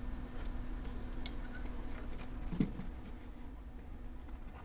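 Light clicks and taps of hands working the rear amplifier plate of an Alesis M1 Active speaker loose from its cabinet, with a soft knock about two and a half seconds in. A faint steady hum runs underneath.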